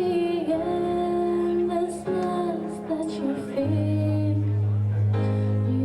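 Slow ballad music with sustained chords and long held notes; a deep bass note comes in a little past halfway.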